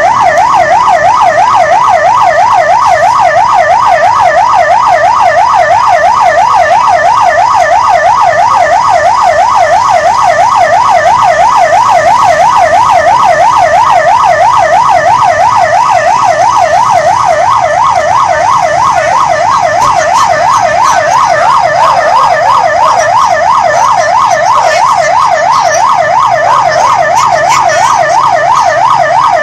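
Police siren wailing in a fast warble, its pitch sweeping up and down about three times a second, steady and very loud.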